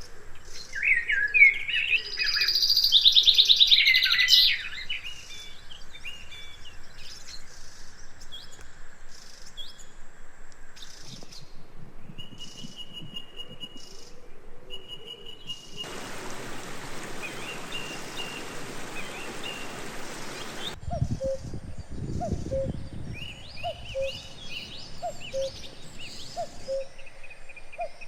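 Wild birds singing and chirping, loudest in the first few seconds. A steady hiss runs for about five seconds past the middle. Near the end a short, low note repeats about once a second.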